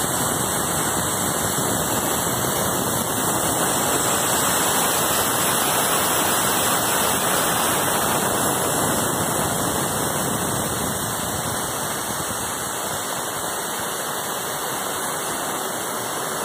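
Large band saw running and cutting lengthwise through a thick wooden plank: a loud, steady sawing noise.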